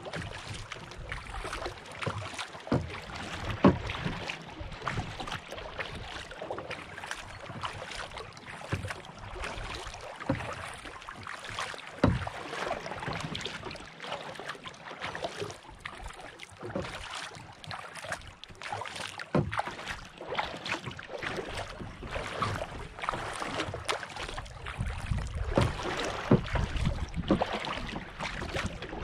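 Lake water lapping and splashing against a kayak hull close to the microphone as the kayak is paddled along. A few sharp knocks stand out, the loudest about 4 and 12 seconds in.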